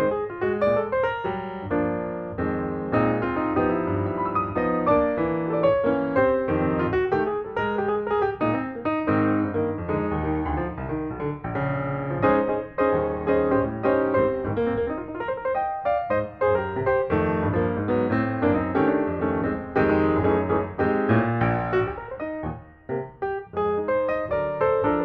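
Background piano music, a continuous keyboard piece.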